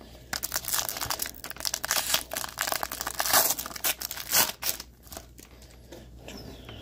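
Foil trading-card pack being torn open and crinkled by hand: a dense run of sharp crackling and tearing for about five seconds, then it drops to faint rustling as the cards come out.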